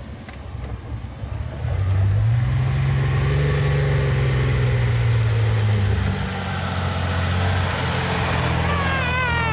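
Jeep Grand Cherokee's engine running at low revs as the SUV crawls down a steep dirt slope and across grass; the engine note rises about two seconds in and eases off a little around six seconds. A short wavering whistle sounds near the end.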